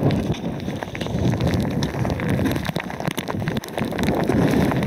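Footsteps crunching on loose, sharp lava rock, heard as many small irregular clicks, with wind buffeting the microphone.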